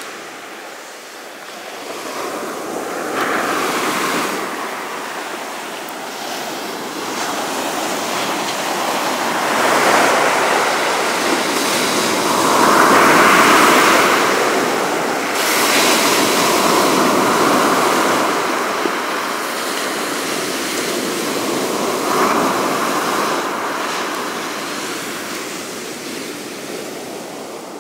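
Sea surf breaking on a beach, rising and falling in slow surges, then fading out near the end.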